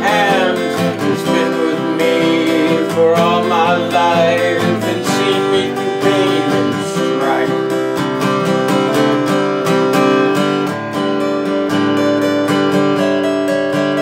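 Acoustic guitar played with a man singing over it through roughly the first half. The guitar then carries on alone, picked note by note, in an instrumental passage.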